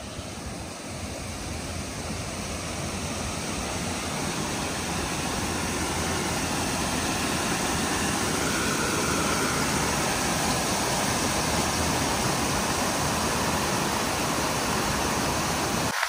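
Creek water rushing white through the bypass channel below the dam, a steady rush that grows gradually louder as the microphone comes closer.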